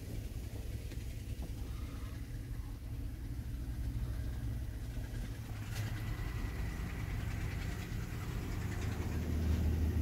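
Heavy truck's diesel engine idling steadily, heard from inside the cab. A faint high whine joins about six seconds in.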